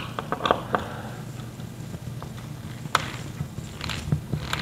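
Scattered light clicks and knocks of a screw being turned in by hand through a metal wall bracket. A sharper click comes about three seconds in.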